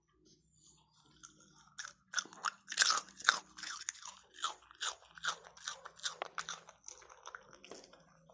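A dog chewing crunchy food close up: a run of crisp crunches at about two to three a second, starting about two seconds in and loudest soon after.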